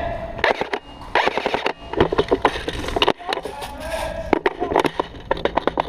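Airsoft guns firing in bursts: rapid sharp clicks and snaps, settling near the end into a fast, even run of shots from full-auto fire.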